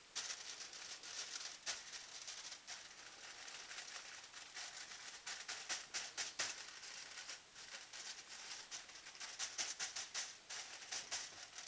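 Hands rubbing ground pepper into a raw rump steak: an irregular rustling and rubbing with many short soft pats.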